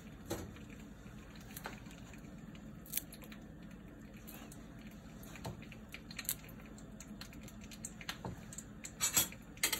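Quiet kitchen room tone with a few faint, scattered light clicks and taps, the clearest near the end, as herb sprigs and a tomato slice are laid on a glass serving plate.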